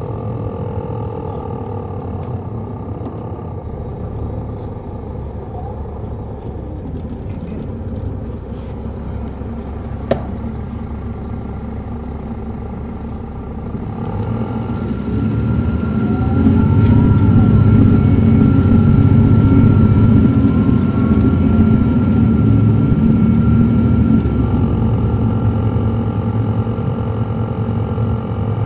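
A 2007 MCI D4500CL coach's Caterpillar C13 ACERT inline-six diesel, heard from on board as the bus is under way. It runs steadily at first, then gets clearly louder about halfway through as the bus pulls harder, with a steady whine above it.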